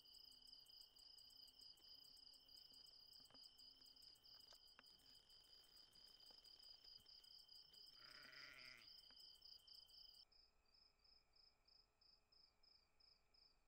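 Faint night ambience of crickets chirping in a steady pulsing trill over a continuous high buzz. A short low call sounds about eight seconds in. About ten seconds in, the chorus changes to a quieter, different cricket trill.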